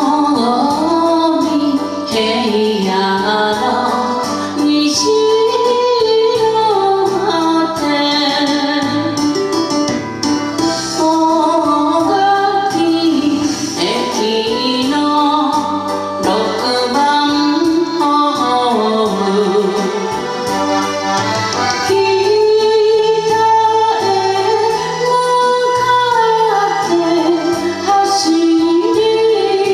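A woman singing a Japanese song in Japanese over instrumental backing music.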